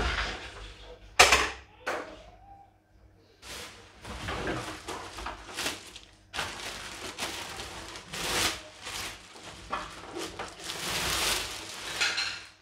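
Plastic wrapping rustling and crinkling in stretches as it is handled and pulled about, with a sharp knock about a second in and a smaller one just after.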